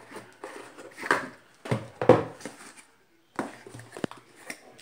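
A white cardboard mailer box being handled and opened on a table: several bursts of cardboard rustling and scraping, then a sharp tap about four seconds in. The sound drops out briefly just before the three-second mark.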